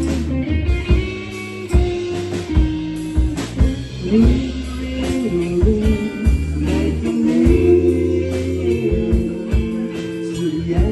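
Live band playing a slow song: guitar over bass guitar and a drum kit with regular cymbal strikes.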